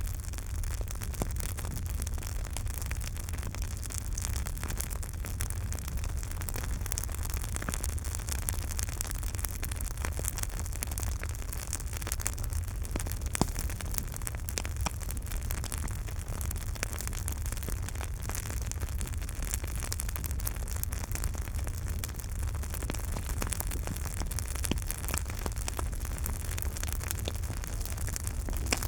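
Campfire burning, with frequent sharp crackles and pops of wood over a steady low rumble of the flames.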